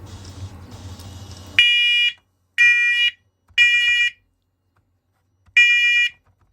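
First Alert Onelink smoke and carbon monoxide alarm sounding its test alarm: loud, shrill piezo beeps in the three-beep temporal pattern that signals smoke. About a second and a half in, three half-second beeps come a second apart, then a pause, then the next set of three begins near the end. A low hum is heard before the first beep.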